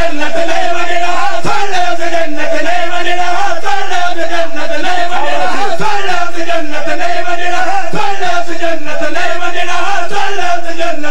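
Crowd of men chanting together in unison, loud and sustained, the pitch wavering gently without a break.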